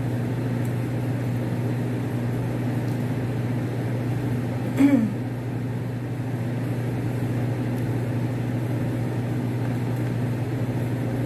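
A steady low hum of a running machine, unchanging throughout, with one brief sound falling in pitch about five seconds in.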